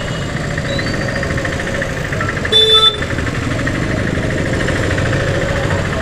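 Vehicle engines idling in a traffic jam, a steady low rumble. A short horn beep sounds about two and a half seconds in.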